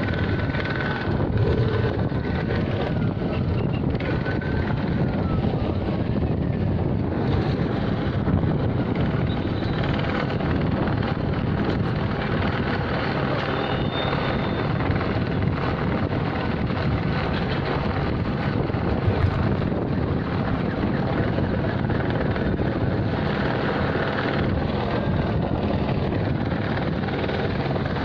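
A steady, loud mechanical drone with hiss, with a few faint wavering tones over it near the start and near the end.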